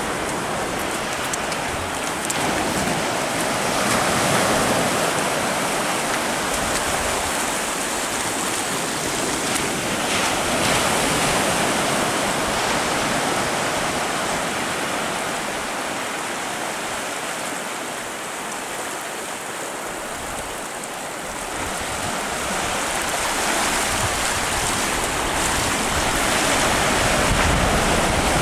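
Surf breaking and washing up a sandy beach, the sound of the waves swelling and easing every several seconds.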